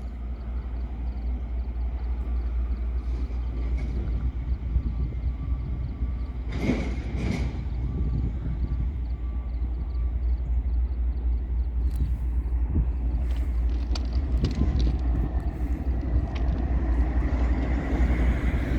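Freight train rolling past: a steady low rumble of wheels on rail, growing a little louder near the end.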